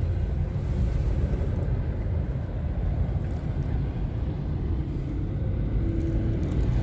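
Car driving along a flooded road, heard from inside the cabin: a steady low rumble of engine and tyres running through standing rainwater.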